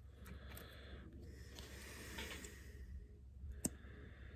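Faint handling of a small chainsaw reed cage and its thin reed as the reed is taken off, with soft rubbing and one sharp click about three and a half seconds in.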